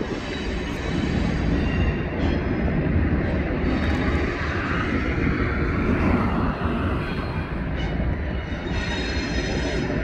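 CSX intermodal freight train rolling by, a steady rumble of wheels on the rails with a few faint high tones above it.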